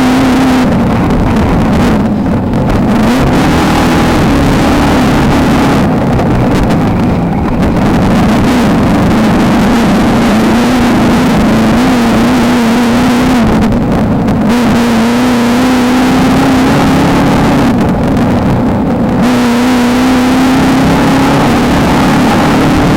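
Beetle-based desert race car's engine running hard at high revs, its pitch wavering a little as the throttle is worked. Over it is a heavy wash of wind and rough-terrain noise that thins out briefly a few times.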